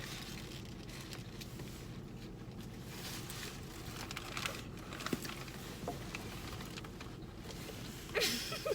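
Eating sounds: chewing a fried chicken sandwich, with faint scattered crackles of paper wrapper crinkling over a steady low hum. A brief burst of voice comes near the end.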